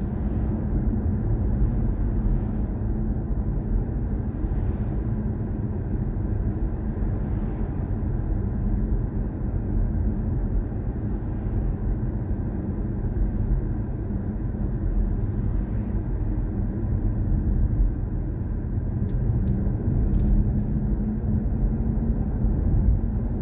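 Steady low rumble of tyre and road noise inside the cabin of a BMW i4 M50, an electric car, driving at an even speed.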